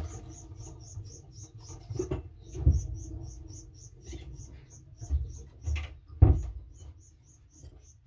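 Fledgling canary cheeping: a fast, even run of short, high, squeaky notes, about four or five a second, with a brief pause midway. A few dull low knocks come through under it, the loudest about two-thirds of the way in.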